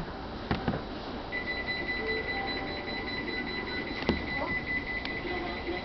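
A train's electronic alarm tone comes on about a second in and sounds steadily at a high pitch, following an emergency brake application, with a couple of sharp clicks along the way.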